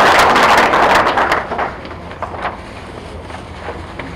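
Audience applause that dies away about a second and a half in, followed by quieter rustling of tissue paper being pulled from a gift bag.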